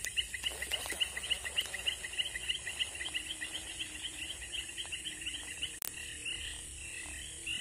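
A rapid, very regular chirping call, short paired high notes repeated about five times a second, from an animal calling by the water. It fades out about six seconds in, and a single sharp click comes just before that.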